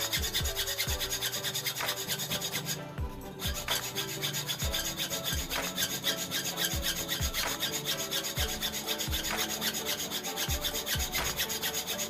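Hand hacksaw cutting through a metal motorcycle brake master cylinder held in a bench vise to shorten it: a continuous run of rasping back-and-forth strokes, with a short pause about three seconds in.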